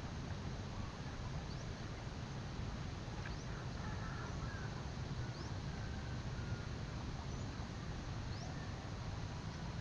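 Open-field ambience: a steady low rumble with a few faint, short high chirps from birds scattered through it.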